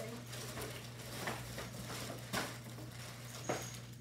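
Paper and plastic packaging rustling and crinkling as it is pulled off a handbag, with a few sharper crackles about a second apart.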